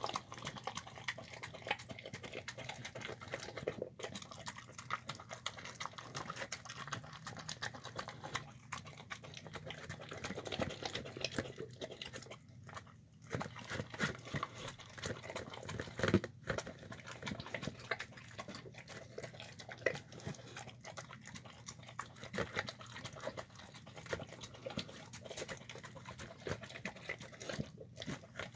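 A dog eating from a plastic tub: a steady run of wet chewing and licking, with clicks and knocks as its teeth and snout hit the plastic. One louder knock comes about sixteen seconds in.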